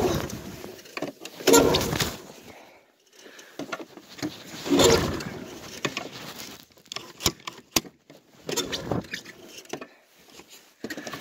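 Recoil pull-starter being yanked on a 1987 Yamaha Exciter 570 two-stroke snowmobile, about four pulls roughly three seconds apart, each a short burst of the engine cranking over. The cold engine does not catch, since no choke has yet been given.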